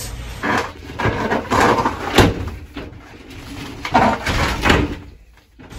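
RV glass sliding shower doors being slid back and forth on their track, rattling and squeaking, with sharp knocks at irregular intervals a few times a second. This is the noise the owner complains of in these doors.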